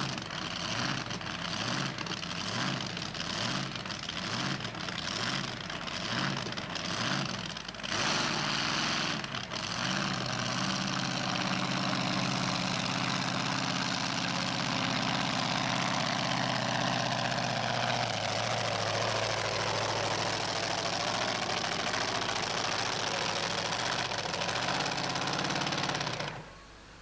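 Supercharged pulling truck's engine revved in short surges about once a second, then running steadily, its pitch sinking about two-thirds of the way in. The sound cuts off abruptly just before the end.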